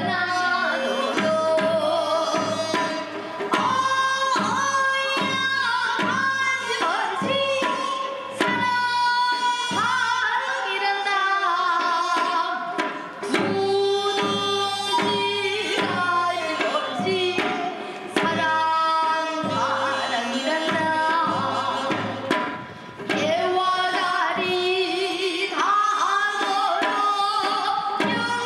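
Traditional-style music: a hand drum beats a steady rhythm under a wavering, gliding melody line.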